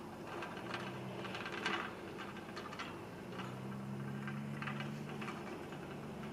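Wheel loader with a front snow plow and wing blade pushing snow: a steady engine hum with scattered ticks and clanks from the blade and machine, the engine note rising about three seconds in.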